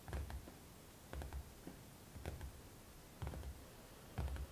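A quiet room with faint, soft rustles and low bumps, about one a second.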